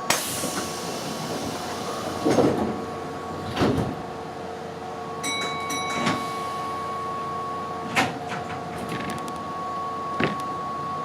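Keihan 5000 series electric commuter train standing at the platform: a steady electrical hum, a series of sharp thumps and clunks, and a short electronic beeping signal about five seconds in, the sounds of its sliding doors working before departure.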